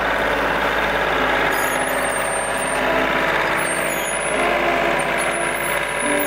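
John Deere compact tractor's diesel engine running steadily under load, its pitch shifting a little as the front loader sets a log onto the sawmill bed.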